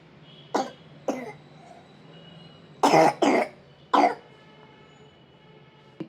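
A young boy with a cold coughing: five short coughs, the loudest a quick pair about three seconds in. His cough is bad enough to keep him from sleeping.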